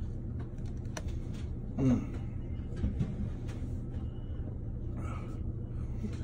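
Steady low hum of room background, with a click about a second in and a short voiced sound from a man, a grunt or breath, about two seconds in.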